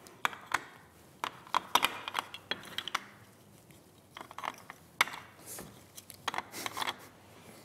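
Large plastic toy building bricks clicking as they are picked up and pressed onto a baseplate: a string of short, irregular clicks and clacks.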